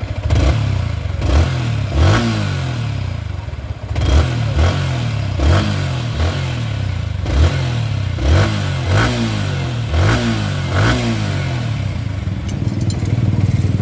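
Yamaha R15 V3's 155 cc single-cylinder engine running, revved in about a dozen short throttle blips. Its rocker valve clearances have just been reset to cure a tappet tick, and it runs completely silent now.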